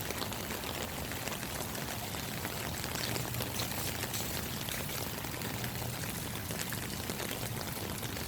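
Heavy rain and floodwater running, a steady rush of water with fine patter.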